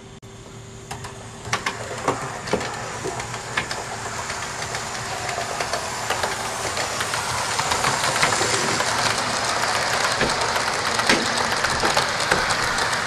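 Hornby OO-gauge HST model train running along model railway track under DCC power: a steady running whirr with irregular small clicks from the wheels on the track, growing louder as the train approaches.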